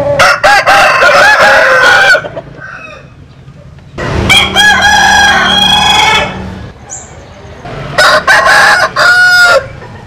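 Roosters of a Vietnamese–American cross 'butterfly' chicken breed crowing: three long crows a couple of seconds apart, the first right at the start, one about four seconds in, and one about eight seconds in.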